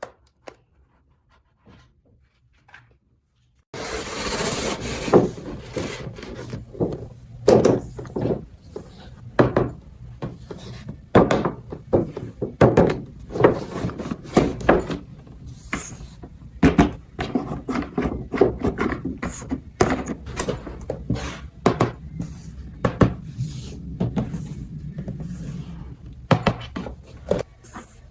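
Toy pieces being handled: faint scattered ticks at first, then, starting abruptly about four seconds in, a continuous run of irregular knocks, clicks and rubbing.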